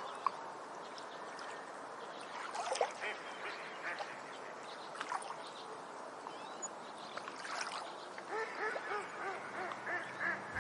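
Ducks quacking over a steady background hiss, with scattered calls and then a quick run of repeated calls from about eight seconds in.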